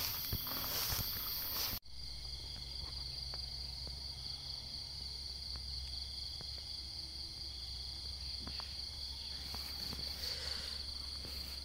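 Steady high-pitched drone of an insect chorus over rice fields, with a steady low hum beneath. In the first two seconds, louder rustling steps sound over the insects and then cut off suddenly.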